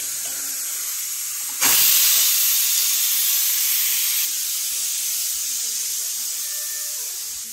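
Pressure cooker on a gas stove letting off steam in a loud, steady hiss. It gets suddenly louder about two seconds in, then eases a little.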